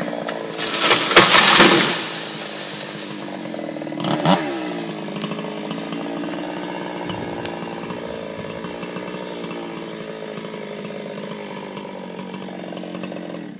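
An engine running steadily, with a loud rushing noise in the first two seconds and a brief rise and fall in pitch about four seconds in.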